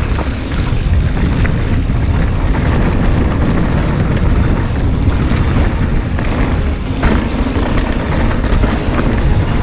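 Mountain bike riding down a dirt bike-park trail: a steady low rumble of wind on the camera microphone and tyres on dirt, broken by scattered short clicks and rattles from the bike over bumps.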